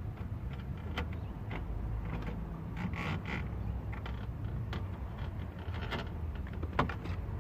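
Scattered clicks, scrapes and plastic creaks of a cable being fished through a car's dashboard trim with a pick-up claw tool, over a low steady hum.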